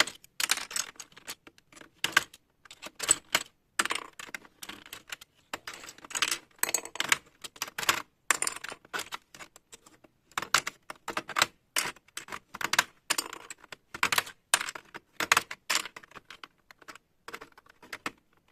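Plastic keycaps of a membrane keyboard clicking and clattering in quick, irregular clusters of sharp clicks with short pauses between.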